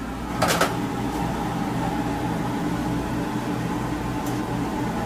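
Steady mechanical hum and fan-like rush of kitchen equipment, with one brief clatter about half a second in.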